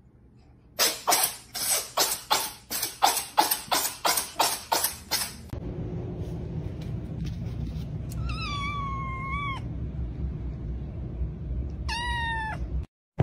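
A cat coughing in a rapid fit, about a dozen harsh coughs in under five seconds, from a cat that suffers from coughing and sneezing fits. Then, over a low rumble, a cat gives one long meow that falls and levels off, and a short meow near the end.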